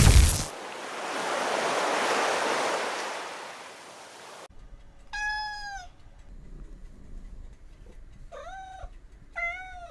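Cat meowing three times, short pitched calls, the last two close together near the end. Before them a rushing noise swells and fades, then cuts off abruptly.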